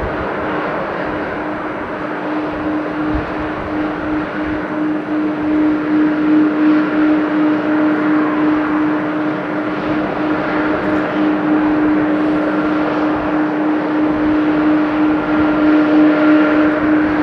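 Jet aircraft engine noise at an airport: a steady hum over a broad rush that slowly grows louder.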